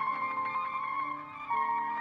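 Brass band music with long held notes; the chord changes and the sound gets louder about one and a half seconds in.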